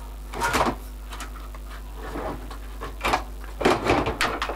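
Handling noises on a workbench: scrapes and knocks as a metal radio chassis and a small work lamp are shifted about, in three short bursts, about half a second in, around three seconds, and a longer cluster near the end.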